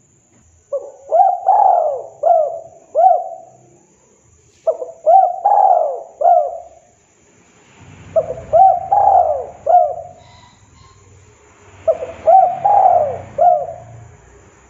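Spotted dove cooing: four phrases of four or five coos each, one starting about every four seconds.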